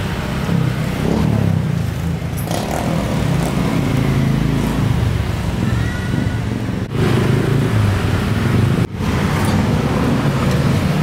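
Steady low rumble of running motor-vehicle engines, broken twice by brief dropouts about seven and nine seconds in.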